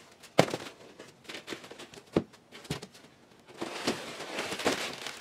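Cardboard box and plastic bubble-wrap packing rustling and knocking as an aluminium radiator is lifted out of its box, with a few sharp knocks, the loudest about half a second in, and steadier rustling in the last second or two.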